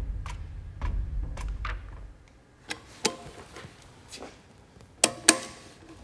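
Sharp metallic clicks and snaps from a Cold Steel American Lawman folding knife being handled, its blade and Tri-Ad lock clicking. The last two, about five seconds in, are the loudest and ring briefly. A low rumble underneath fades out about two seconds in.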